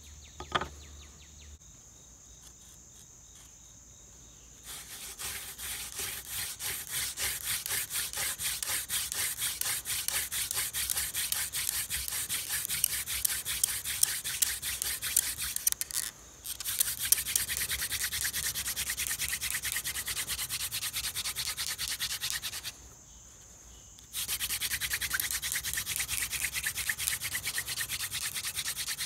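Hand drill friction fire: a horseweed spindle spun back and forth between the palms, drilling into a soft, degraded tulip poplar fireboard. The fast, rhythmic rubbing hiss of the spindle in the board starts about five seconds in, with a short break past the middle and another about two-thirds of the way through.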